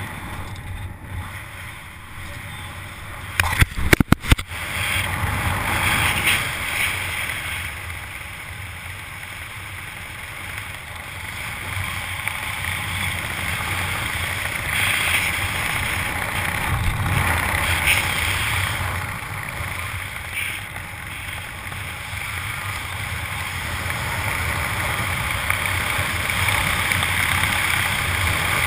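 Wind rushing over the microphone of an action camera under an open parachute canopy: a steady rushing noise that swells and eases. A quick cluster of sharp knocks about four seconds in.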